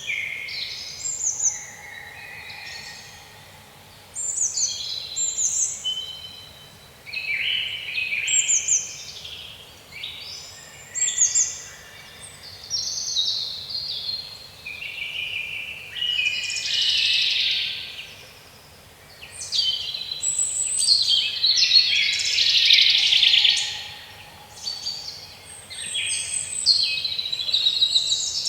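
Songbirds chirping and singing: several overlapping birds in bursts of quick, high, falling notes and trills, with short quieter gaps between phrases.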